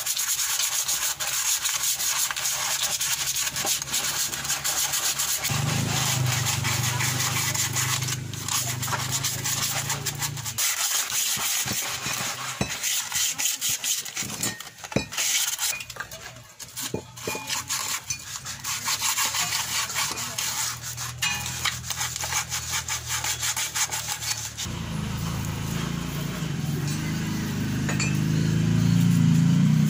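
Continuous hand rubbing and scraping on a car's rear drum-brake parts, the brake drum and shoes, as they are cleaned: a rough, scratchy noise made of many small scrapes. A low steady hum comes in twice for several seconds.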